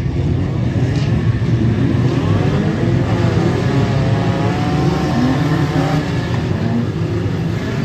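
Several banger racing cars' engines running and revving together, their notes wavering up and down over a steady low rumble.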